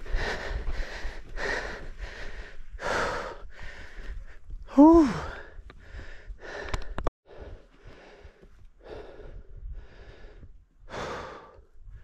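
A mountain biker breathing hard in quick, rhythmic gasps, roughly one to two breaths a second. About five seconds in, a short, loud voice sound falls in pitch, like a grunt or groan.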